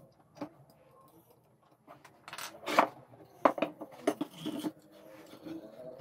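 Metal parts and tools clinking and knocking: a few faint clicks, then a quick run of sharp metallic knocks and clinks between about two and five seconds in.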